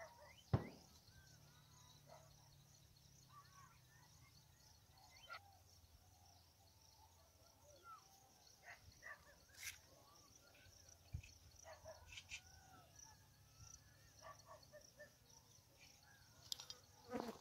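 Faint outdoor ambience: a steady high insect drone, like crickets, with scattered faint bird chirps and a couple of soft clicks.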